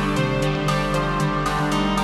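Ambient electronic music played live on a Eurorack modular and hardware synthesizer rig: sustained synth drones and held tones under a sequenced pattern of short notes, about four a second.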